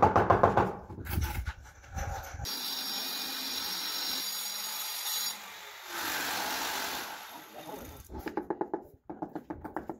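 Steel trowel scraping and spreading cement mortar on a granite stair step: a steady, rough scraping.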